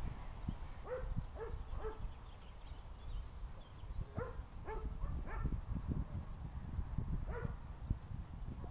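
Short animal calls in three groups: three about a second in, about four between four and five and a half seconds, then one more near the end.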